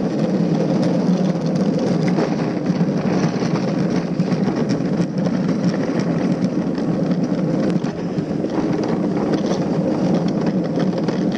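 Gravity luge cart rolling fast down a concrete track: a loud, steady rumble of wheels on concrete with constant small rattles and knocks.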